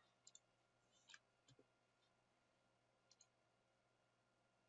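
Near silence with a few faint computer mouse clicks, spread over the first few seconds.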